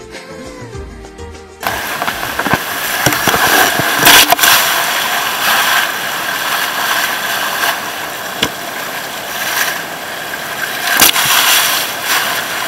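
A song plays for about the first second and a half and then cuts off. After that comes the steady running of an outrigger boat's engine, mixed with wind noise on the microphone and water rushing past, and a few sharp knocks, the loudest around four seconds in and again near eleven seconds.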